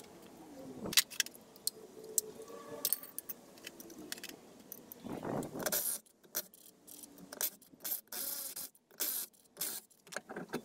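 Metallic clinks, scrapes and jingles of lug nuts and tools at a pickup truck's wheel hub as the wheel is taken off, with several short bursts of noise in the second half.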